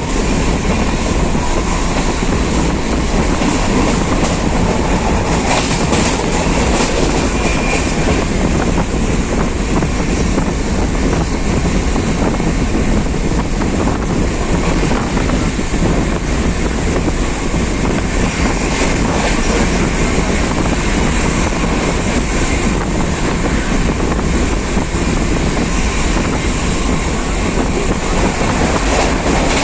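A train running along the track, a loud, steady noise of wheels and rails that holds an even level throughout.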